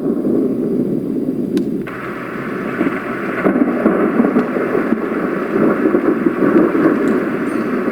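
Thunderstorm sound track played through a Roffie white noise machine's speaker: a steady low rumble of thunder under rain hiss, the hiss growing brighter about two seconds in.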